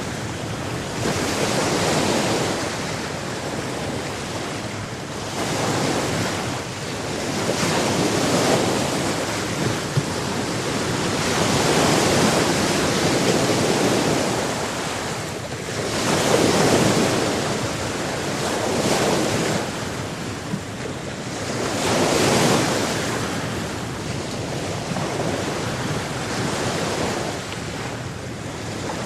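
Sea surf: waves breaking and washing on the shore, swelling and ebbing every few seconds, with wind on the microphone.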